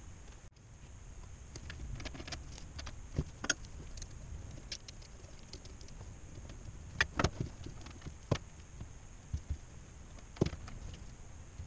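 Scattered light clicks and taps of gloved hands handling a small metal fitting on a clear fuel-line tube, a few sharper knocks among them, over a steady low hum.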